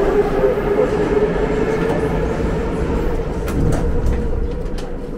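Metro train heard from inside the carriage: a steady motor whine that rises a little in pitch and then holds, over the rumble of wheels on rails. From about three and a half seconds in come a few clicks of the wheels over rail joints.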